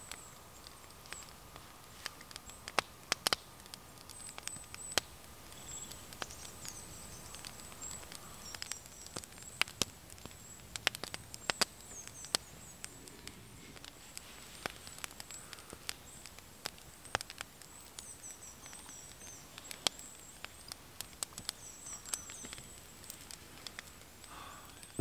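Small wood fire crackling, with irregular sharp pops and snaps. Thin, high bird calls chirp now and then.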